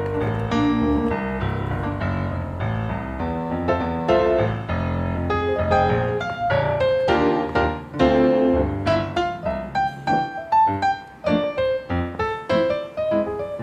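Background piano music: a played melody of single struck notes over low notes.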